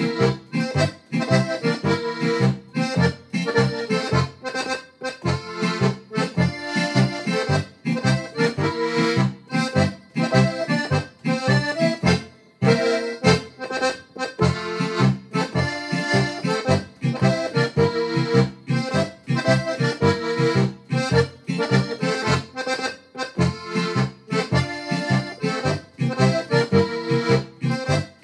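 Piano accordion playing a traditional folk tune, melody over a steady rhythmic accompaniment.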